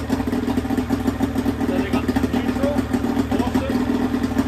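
Outboard motor running steadily, a couple of seconds after starting, with a fast, even pulse. This is the test run of its rebuilt gearcase, done to check that it now shifts into neutral, forward and reverse.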